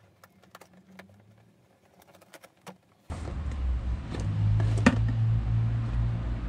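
Faint clicks and rustles of a cardboard box being handled. About three seconds in, a steady low rumble starts abruptly, with more handling of the box and its contents and one sharp click near the middle.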